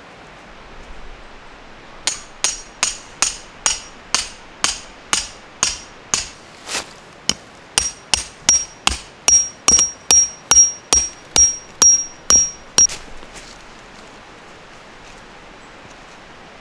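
A hammer driving a metal tent peg: about two dozen sharp blows that quicken from about two to three a second, each with a thin metallic ring in the second half. The hammering stops a little past the middle.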